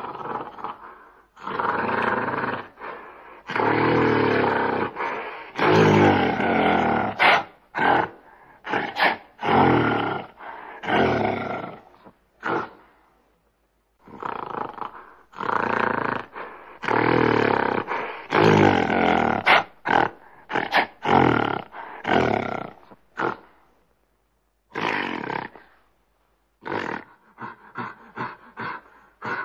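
Gorilla calling loudly in a series of roaring calls, each about one to two seconds long with short pauses between. Near the end come quick short calls, about four a second.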